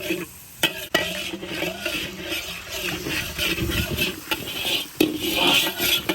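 Spatula stirring garlic and sauces in a hot pan, scraping against the metal over a sizzle, with a few sharp knocks of utensil on pan.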